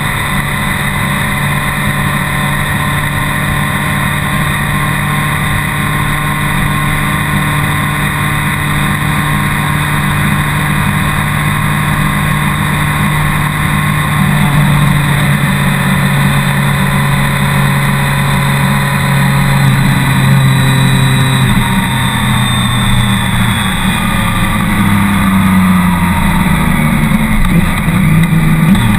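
BMW K1200R Sport's inline-four engine running at steady cruising revs with wind and road rush. In the last ten seconds the engine pitch rises and falls several times as the throttle changes.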